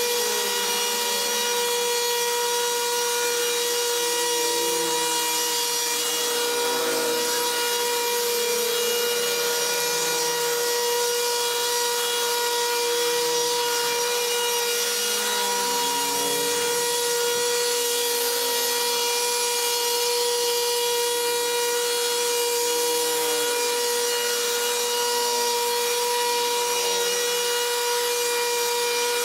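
Motorised brush cutter running at a steady high speed with an unbroken whine, cutting through dense overgrown grass.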